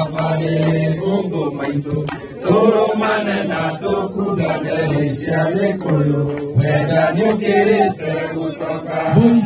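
A man's voice singing a chant-like song through a microphone and loudspeakers, in long held notes with short breaks between phrases.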